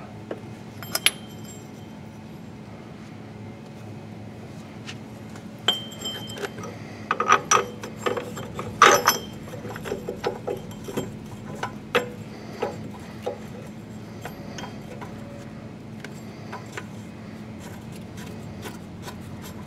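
Irregular metallic clinks and taps of hand tools and hardware against a forklift's engine mount and bolt, busiest around the middle, over a low steady hum.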